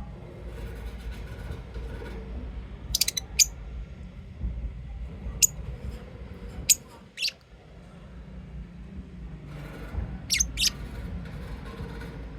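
Lovebirds giving short, sharp, high-pitched chirps, singly and in quick pairs, about seven in all, over a steady low background hum.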